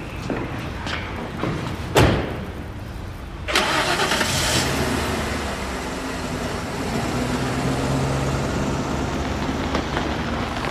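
A car door shuts with a single thud about two seconds in. About a second and a half later the car's engine starts and keeps running steadily.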